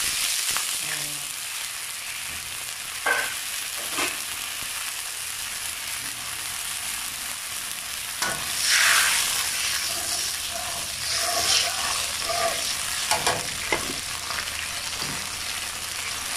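Chili-paste sauce sizzling and bubbling in a metal wok just after a splash of water went in, with a ladle stirring and scraping the pan. A few short clinks, and a louder scrape about halfway through.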